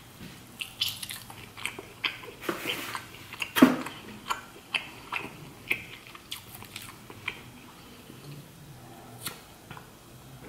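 Close-miked chewing of lobster meat: a run of sharp mouth clicks and short wet bites, thickest in the first seven seconds and thinning out toward the end.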